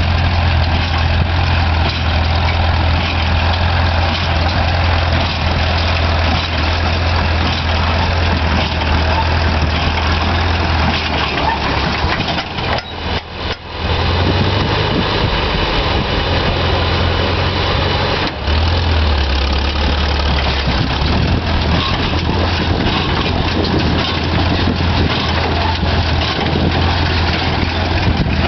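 Farmall Super C tractor's four-cylinder gasoline engine running steadily while driving a Massey-Ferguson No. 10 hay baler pressing dry hay, with a strong low hum throughout. The sound drops away briefly a little under halfway through, then resumes.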